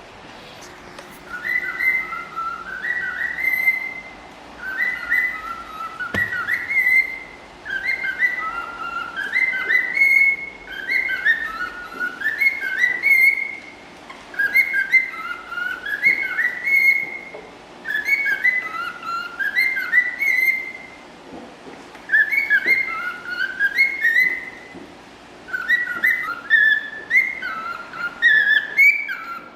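Cockatiel whistling a song: the same short tune of rising and falling notes repeated about every two seconds, with brief pauses between.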